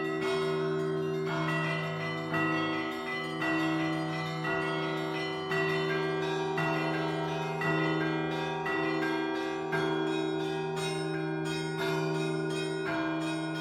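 Russian Orthodox church bells being rung: strokes come about once a second over the ringing of several smaller and larger bells, whose tones overlap and hang on between strokes.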